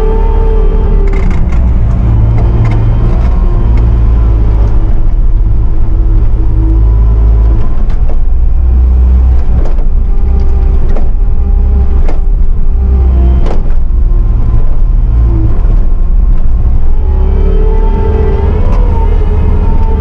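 Bobcat T650 compact track loader's diesel engine running under load, heard from inside the cab, its rumble rising and falling as the loader works. A few sharp knocks and rattles cut through, the loudest about a dozen seconds in.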